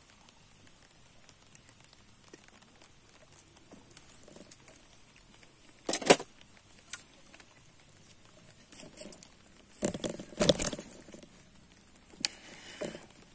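Scattered sharp knocks and rattles of fishing tackle being handled, a landing net among it, with the loudest clatter about ten seconds in and quiet between the knocks.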